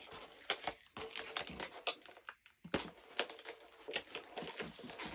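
Parcel packaging being handled and opened by hand: irregular crinkles, rustles and small taps.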